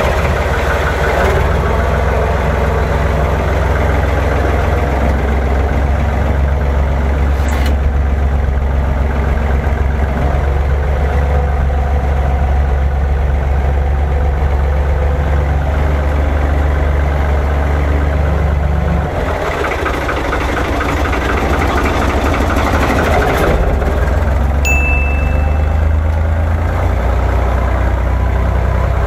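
Farm tractor's diesel engine running steadily as the tractor drives over deep snow. Its note drops about 19 seconds in and picks up again a few seconds later.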